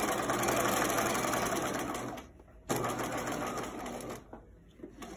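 Bernina 1008 sewing machine running as it straight-stitches through the layers of a cloth mask. It runs steadily for about two seconds, pauses for half a second, runs again for about a second and a half, then stops, with a few faint clicks near the end.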